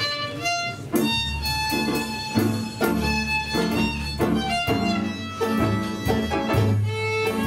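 Small live band playing the opening of a tango: a bowed violin-like melody over a double bass and steady rhythmic accompaniment, the full band coming in about a second in after a short melodic lead-in.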